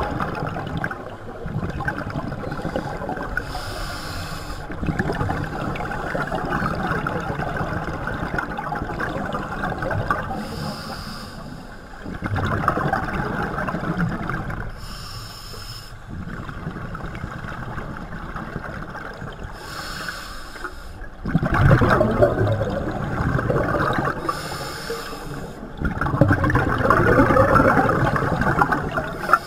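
Scuba regulator breathing heard underwater: a short hiss of inhalation about every five seconds, each followed by a long, rough, bubbling exhalation.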